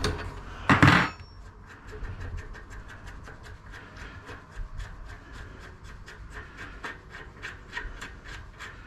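Bicycle rear hub being taken apart with spanners: one loud knock about a second in, then a long run of quick, even clicking with scraping, about six clicks a second, from the damaged loose-cone hub being worked.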